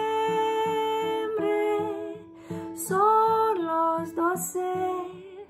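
A woman singing to her own acoustic guitar: a long held note at the start, then another sung phrase about three seconds in, over steady strummed chords.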